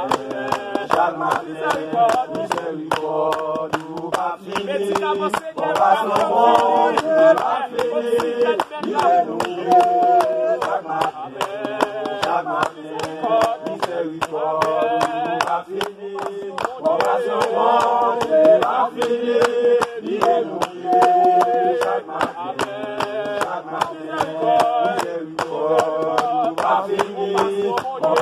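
A group of people singing a worship song together, clapping their hands in a steady beat of about two to three claps a second.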